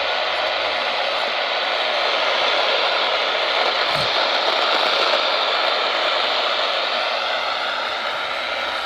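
Radio static: a steady hiss from a radio receiver, with one brief click about four seconds in.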